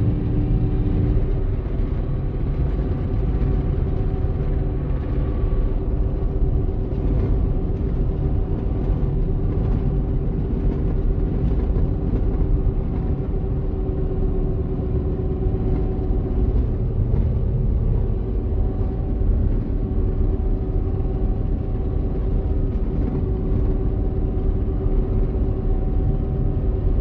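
Claas Dominator 88SL combine's diesel engine running steadily while the combine drives on the road, heard from inside the cab: an even low rumble with a steady held tone above it.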